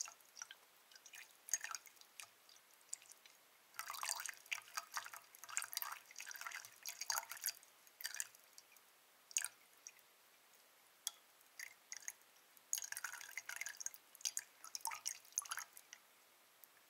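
Water poured in a thin stream from an MSR Pika teapot's spout into a Snow Peak metal mug, splashing and dripping in uneven bursts with a sparser spell in the middle.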